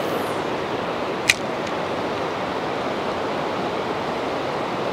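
Steady sound of flowing river water, an even hiss with no rhythm, with one short sharp click about a second in.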